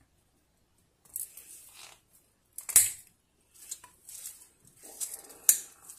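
Short pieces of rubber hose being cut with pliers: two sharp snips, one nearly halfway through and one near the end, among rustles of the hose being handled.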